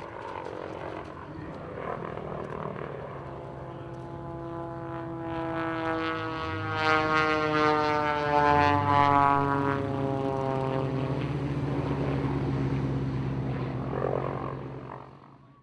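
MX-2 aerobatic aircraft flying past, its propeller engine note loudest mid-way and falling steadily in pitch as it goes by, over a steady low engine hum, then fading out near the end.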